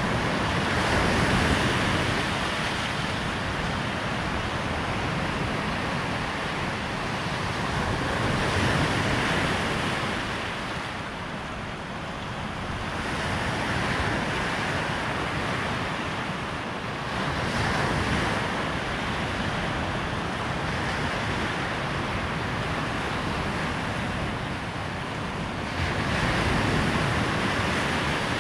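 Waves breaking on a sandy beach, the surf swelling and easing every few seconds, with wind rumbling on the microphone.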